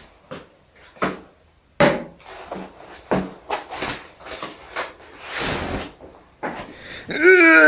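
Diarrhoea noises: a run of short, irregular wet splats and sputters, with a longer hissing spray about five and a half seconds in. Near the end comes a loud, drawn-out pitched sound that wavers in pitch.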